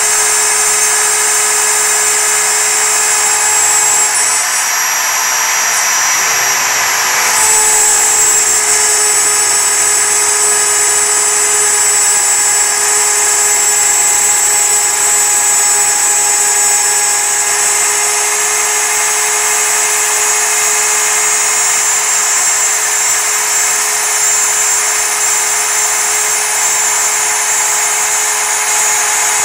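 MPCNC spindle running at full speed while a single-flute end mill cuts a profile in 6061 aluminium plate. It is a steady, high-pitched machining whine mixed with the noise of chips being cut. Its tone shifts briefly from about four to seven seconds in, then settles again.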